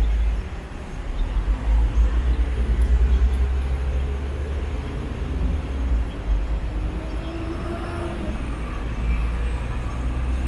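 Road traffic running past, with a heavy low rumble. An engine note begins to rise in pitch near the end as a vehicle accelerates.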